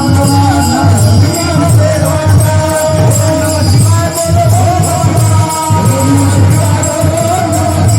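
Devotional kirtan chant: a sung, wavering melody over a regular drum beat and jingling hand cymbals, with a few held steady tones underneath.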